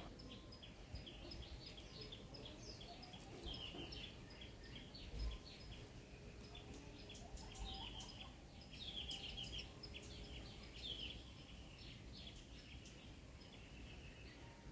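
Small birds chirping and twittering repeatedly in the background, with a brief low thump about five seconds in.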